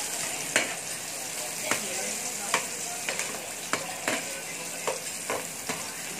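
Sliced onions sizzling in a metal wok while a spatula stirs them, the spatula knocking and scraping against the pan about nine times, roughly once or twice a second.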